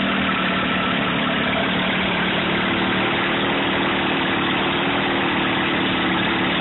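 Evinrude 35 hp two-stroke outboard motor running steadily with its hood off, the bare powerhead heard directly.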